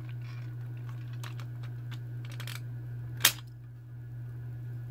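Plastic clicks and rattles from handling a pink toy hand mixer, with one sharp, loud click about three seconds in, over a steady low hum.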